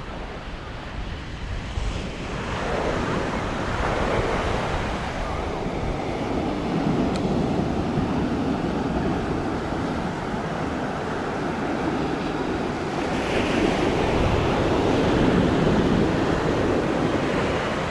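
Sea surf breaking and washing up the beach, swelling about two seconds in and again strongly near the end, with wind buffeting the microphone.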